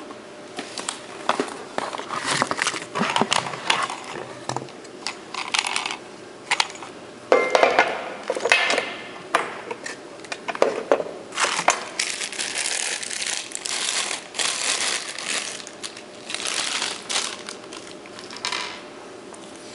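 Clear plastic packaging crinkling and rustling in irregular bursts, with light knocks and clicks of handling, as force gauges are unwrapped from it.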